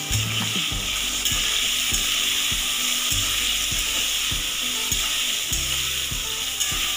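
Cubed potatoes frying in hot mustard oil in a metal kadai, sizzling steadily, with a spatula scraping and knocking against the pan as they are stirred.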